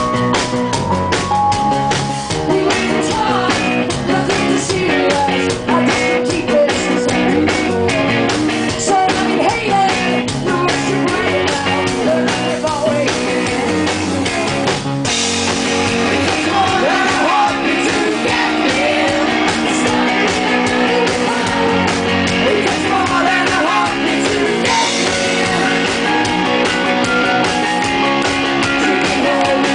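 Rock music: a drum kit keeping a steady beat under guitars and a singing voice. About halfway through it turns brighter and fuller, as the cymbals and guitars open up.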